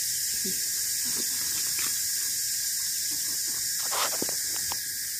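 Steady high-pitched drone of insects in the surrounding vegetation. About four seconds in come a sharp click and a brief metallic rattle as the hook of a hanging scale is handled.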